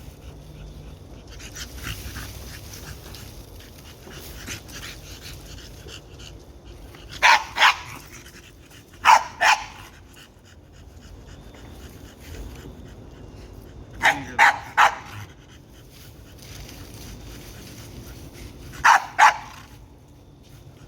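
Dog barking in four short volleys of two or three barks each, several seconds apart.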